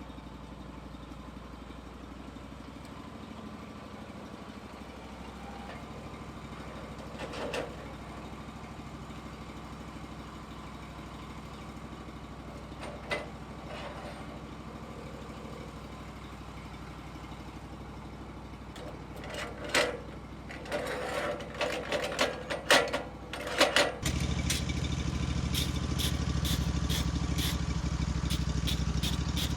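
Portable sawmill's engine idling steadily, with a sharp knock and then a string of metal knocks and clanks. Near the end the engine is throttled up and runs louder and steady.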